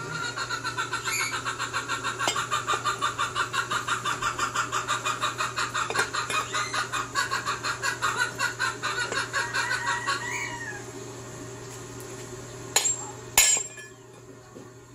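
A chicken clucking in a rapid, even run for about ten seconds. Two sharp knocks follow near the end.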